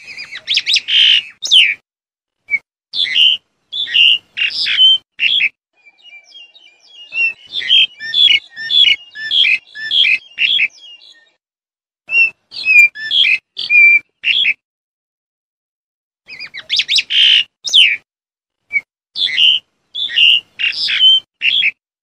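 Black-collared starling calling in quick bouts of loud chattering and whistled notes, with pauses of about one to two seconds between bouts.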